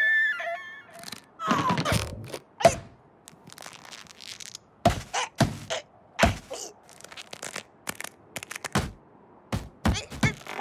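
Slapstick cartoon sound effects: an irregular run of knocks and thuds, with squeaky falling cries near the start.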